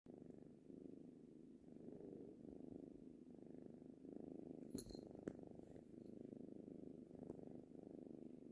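Tabby kitten purring steadily, the purr swelling and easing with each breath in and out: the sound of a contented cat. Two short clicks about five seconds in.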